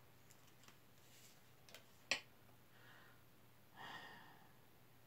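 Near silence with faint handling clicks from the pages of a small paper booklet being turned, one sharper click about two seconds in, and a soft exhale near four seconds in.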